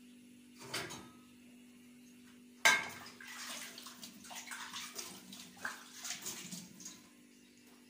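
A metal pan of chicken is set down on a gas stove's burner grate with a sharp clank, after a smaller knock. A utensil then scrapes and shifts the sauced chicken pieces in the pan for about four seconds, a wet, irregular scraping.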